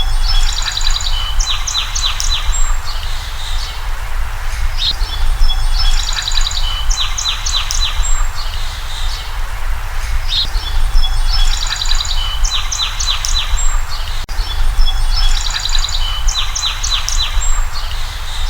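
A songbird singing the same short phrase of quick, high notes about every five seconds, over a steady low rumble.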